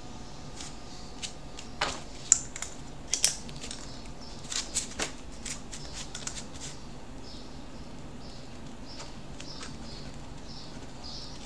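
Scattered light clicks and taps of small handling at a computer desk, bunched between about two and seven seconds in, over a steady faint hum.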